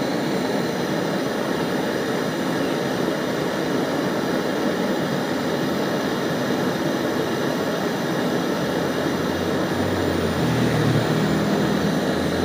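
LPG hand torch burning with a steady roar from its open flame, heating a soldering iron tip. A low hum joins the roar about ten seconds in.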